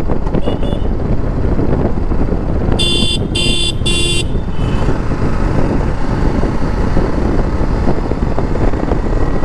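Motorcycle ridden at road speed, with its engine running under heavy wind rush on the microphone. About three seconds in, a horn toots three times in quick succession.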